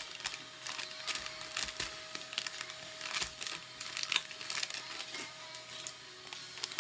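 Scattered light clicks and knocks of kitchen items being handled, irregular and never settling into a rhythm, over a faint steady hum.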